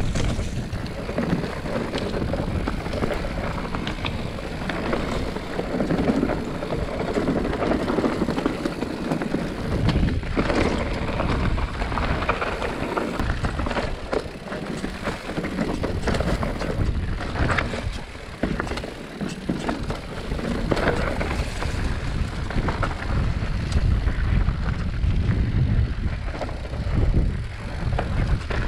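Mountain bike riding down rough singletrack: a continuous rattle and clatter of tyres, chain and frame over rocks and dirt, with wind buffeting the camera microphone.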